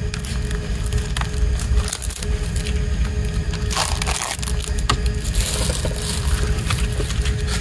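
Clear plastic wrapping crinkling as it is pulled off a CD jewel case, with a few sharp clicks of the plastic case, loudest about four seconds in. Background music plays underneath.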